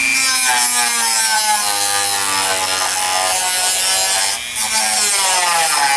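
Dremel rotary tool grinding the mushroomed end of a steel bolt, rounding and tapering it to clean up the damaged threads. A harsh, steady grind with the motor's whine sagging in pitch as it bears on the metal and recovering, easing off briefly about four and a half seconds in.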